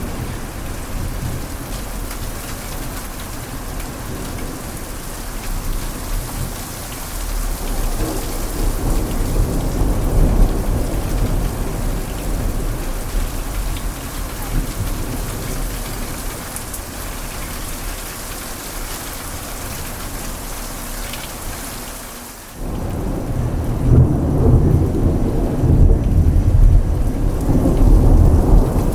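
Thunderstorm: steady rain hissing with low rolling thunder that swells and fades. About two-thirds of the way through the sound cuts abruptly to a louder passage of heavy rumbling thunder over rain.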